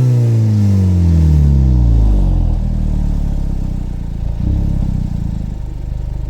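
VW Golf Mk5 GTI's turbocharged 2.0-litre four-cylinder on its original exhaust, revs falling back from a blip and settling to a steady idle over the first two and a half seconds. The idle swells briefly about four and a half seconds in.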